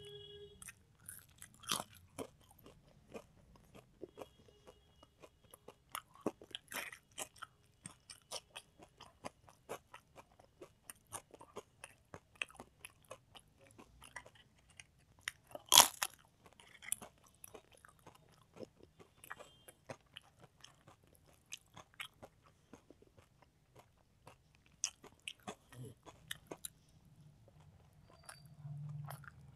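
Close-miked eating: chewing and crunching of mouthfuls of rice and fried food eaten by hand, as a steady run of small crisp clicks. Just past the middle comes one loud sharp crack as a papad is broken.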